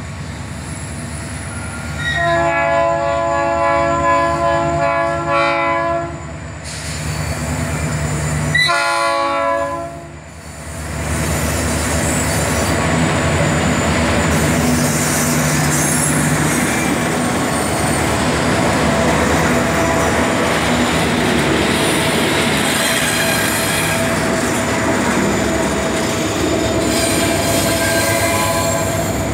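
FCCA diesel locomotives 705 and 701 sounding their horn twice as the freight train approaches: a long blast of about four seconds starting about two seconds in, then a short blast around nine seconds. From about eleven seconds the locomotives and a long string of container wagons run past close by with a steady, loud rolling noise of engines and wheels.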